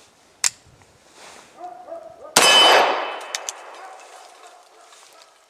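A single 9mm shot from a CZ P-01 pistol about two and a half seconds in, its report dying away over a few seconds with a faint ring. It is preceded about half a second in by one sharp metallic click from the pistol.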